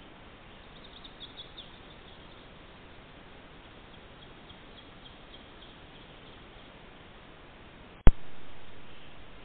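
Trail camera's steady microphone hiss with faint, high bird chirps. About eight seconds in, a sharp click as a new recording begins, followed by louder hiss that fades away.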